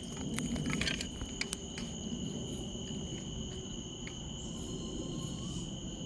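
A steady, unbroken high-pitched tone, ringing on without pause, with a few light clicks in the first second and a half; its source is unidentified, and it is guessed to be some kind of bird.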